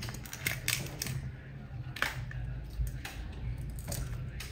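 Raw giant river prawn's shell being peeled off by hand: irregular small clicks and crackles of shell cracking and snapping, over a steady low hum.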